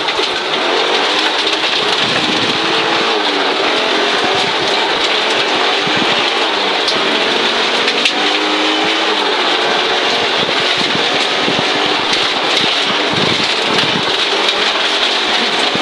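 Audi Quattro Group B rally car heard from inside the cabin: its turbocharged five-cylinder engine revving hard, the pitch climbing and dropping repeatedly through gear changes, over a steady hiss of gravel spraying against the underbody.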